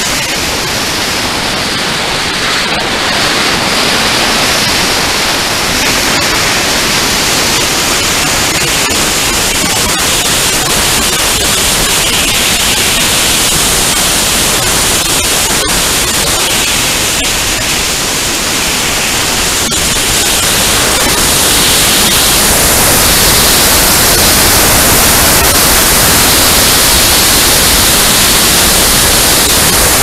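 Loud, steady rush of air over the microphone of a camera riding on an RC glider's wing in flight in gale-force wind. It grows a little louder about two-thirds of the way through.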